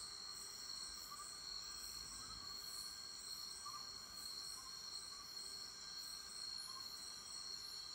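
Insect chorus of crickets: several steady, high-pitched trills running together without a break, with a few short, fainter chirps lower down.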